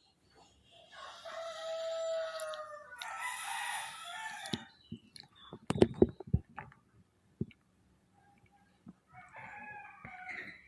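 An animal's long pitched call lasting about three and a half seconds, a steady tone that turns rough partway through. A few sharp knocks follow around six seconds in, and a shorter call comes near the end.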